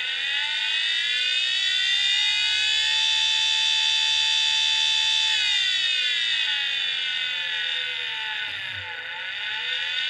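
Opened hard drive's spindle motor whining: the whine rises as the platter spins up, holds steady for a few seconds, then falls as it spins down and rises again just before the end, the drive starting over. The drive's read head is damaged, with part of it dangling.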